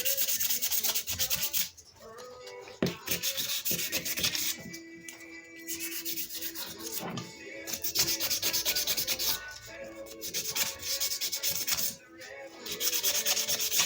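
500-grit sandpaper rubbed by hand over steel lineman's pliers: quick back-and-forth scratching in spells of a second or two, with short pauses between them.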